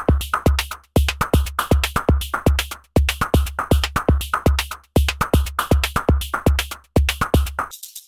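Background electronic music with a steady drum-machine beat and heavy kick drum. The beat cuts off near the end, and a lighter, fast ticking rhythm follows.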